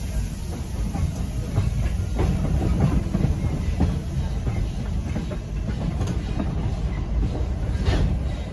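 Passenger coach of a moving train rolling along the rails: a steady low rumble with scattered sharp clicks from the wheels.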